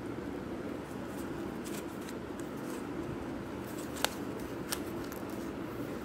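Plastic 3x3 speed cube being turned by hand: scattered faint clicks of its layers, then two sharper clacks about four and nearly five seconds in, over a steady low hum.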